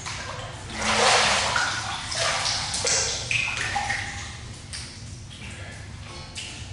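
Water splashing and pouring off a person climbing out of a hot tub, loudest about a second in, then tapering off into smaller splashes and drips over a steady low hum.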